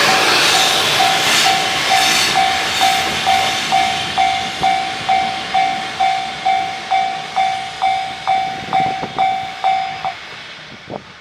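Japanese level-crossing warning bell ringing about twice a second, a clear electronic ding, over the noise of a passing freight train that fades away. The bell stops shortly before the end.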